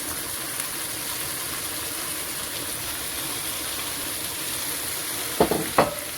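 Vegetables and tomato sauce frying in a pot, a steady sizzle. Two short knocks come close together near the end.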